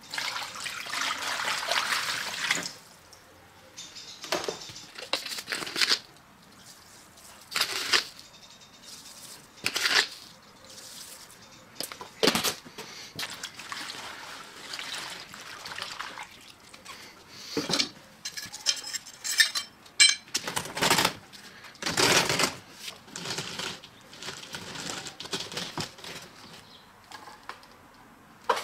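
Water pouring from a plastic tub into a plastic tray for about two and a half seconds, then intermittent splashing and sloshing as a gloved hand stirs the foaming solution, with scattered knocks and clatters in between.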